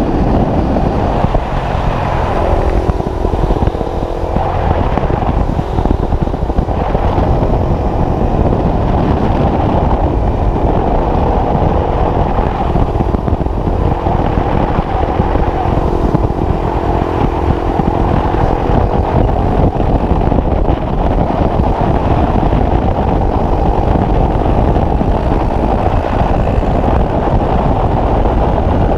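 Small single-cylinder trail motorcycle engine running while riding, its pitch rising and falling gently, under heavy wind rumble on the microphone.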